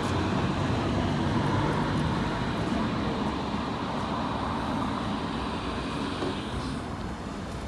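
Interior running noise of a railway coach on the move, a steady rumble that grows gradually quieter.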